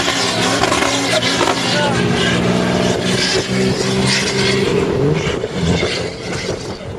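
Nissan Patrol 4x4 engine running at high, steady revs under load as it powers across a soft sand dune. The engine note holds one pitch, then fades out about five seconds in.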